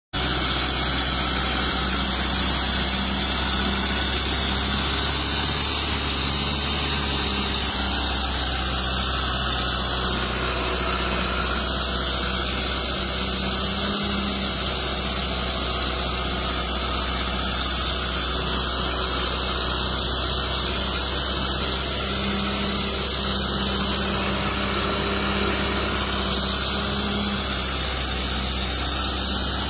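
Steady engine noise with a constant high hiss over it, from vehicles working deep mud: a Toyota Hilux pickup crawling through the ruts and a bulldozer close by.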